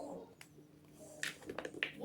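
A few short, crackly crunches of gym chalk being crushed, the clearest about a second in and near the end.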